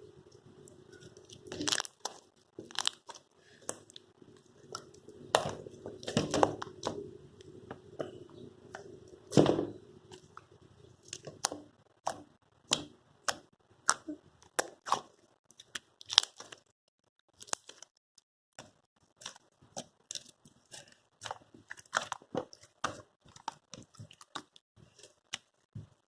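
Slime being squeezed and poked by hand, making irregular sticky clicks and pops, busier and louder in the first half and sparser later.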